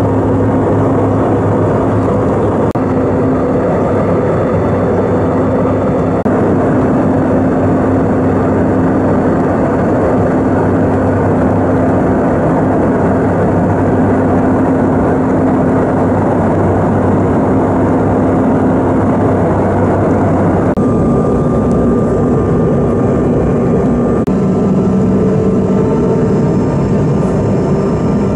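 Steady airliner engine drone and rushing air heard inside the passenger cabin. The hum shifts pitch about 21 seconds in, and again a few seconds later, as the engine setting changes.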